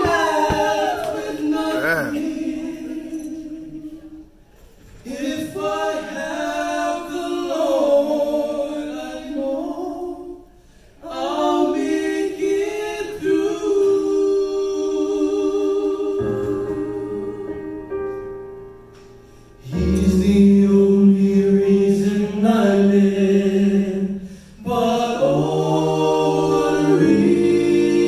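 Male vocal group singing a slow song in close harmony, in long held phrases with short breaks between them.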